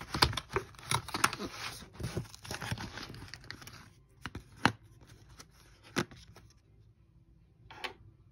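Cardboard advent-calendar door being torn open and the thin plastic chocolate tray crackling as it is pulled out. A dense run of tearing and crackling lasts about four seconds, then a few separate clicks follow.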